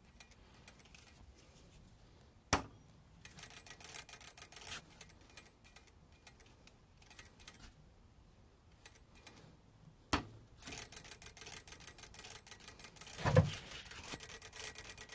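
BMX rear wheel spun by hand twice: a sharp slap on the tyre each time, then rapid ticking as the wheel coasts, typical of the freewheel ratcheting. A dull thump comes near the end as the hand stops or grabs the tyre.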